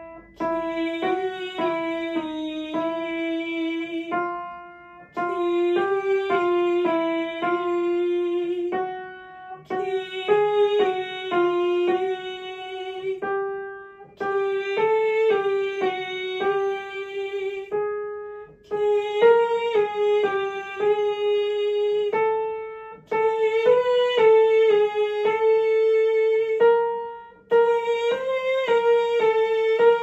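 A woman singing a vocal warm-up exercise along with an upright piano: a quick run of notes sung and played in short phrases about four seconds apart, each phrase a step higher than the one before.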